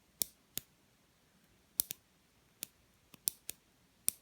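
Sharp, light clicks of small metal lock parts being handled, irregularly spaced, about nine of them, a few in quick pairs.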